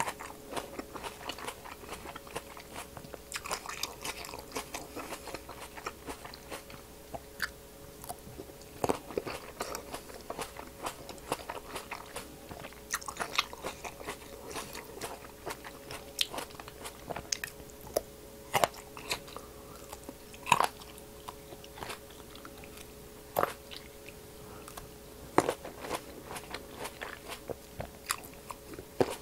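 Close-miked biting and chewing of crisp green apple grapes pulled off the stem: irregular sharp crunches and pops as the skins break. A faint steady hum runs underneath.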